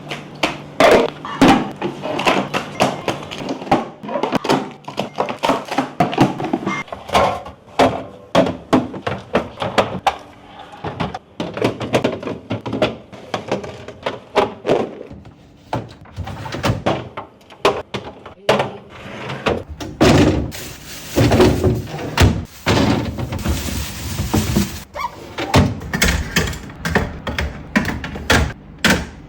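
Plastic fridge organizers, containers and bottles being set down, slid in and shuffled around a refrigerator: a dense, irregular run of clunks, knocks and clicks, with a stretch of hiss about twenty seconds in.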